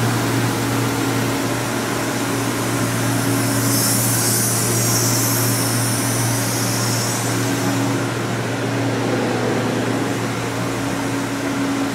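Steady machine-shop hum: a low drone with a higher steady tone that drops in and out, from running machinery and its fans. A hiss swells for a few seconds in the middle.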